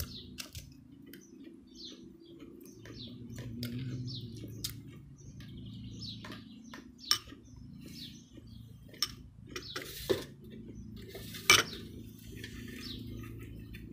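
Cutlery clinking and scraping against china plates and a metal serving tray during a meal, in scattered sharp clicks, the loudest one late on. Small birds chirp in the background.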